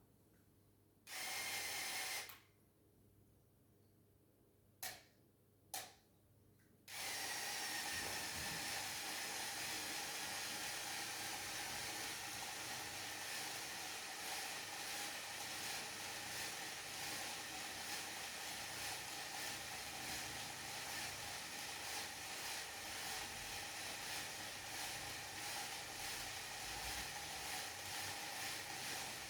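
Small electric motor and plastic gear train of a LEGO Technic 42082 crane whirring. It runs briefly about a second in, gives two short blips around 5 to 6 seconds, then runs steadily from about 7 seconds on, its pitch dipping slightly as it settles.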